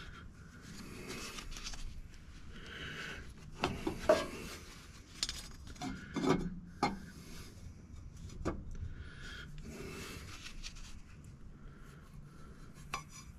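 Metal exhaust tubing being handled and worked by hand: rubbing and scraping strokes with several sharp knocks and clanks, the loudest about four seconds in.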